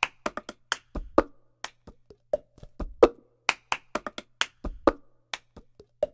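Paper and card sheets being handled and set down on a tabletop: a string of sharp, irregular taps and light rustles, several a second.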